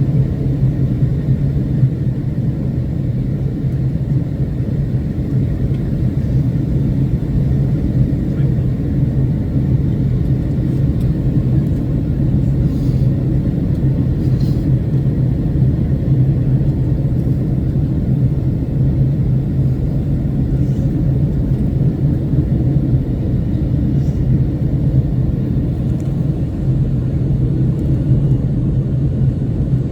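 Boeing 757-200 in flight: a steady low rumble of engines and airflow with an even drone that does not change.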